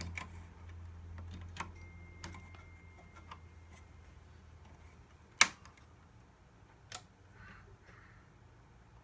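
Scattered light clicks and taps of parts or tools being handled during an amplifier repair, with one sharp, louder click about five and a half seconds in and another about a second and a half later. A low hum runs underneath and fades out about halfway through.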